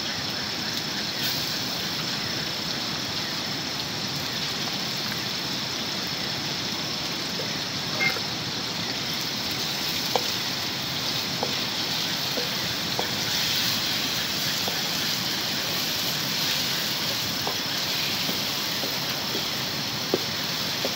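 Fish frying in oil in a wok over a wood fire: a steady sizzle with a few scattered small pops.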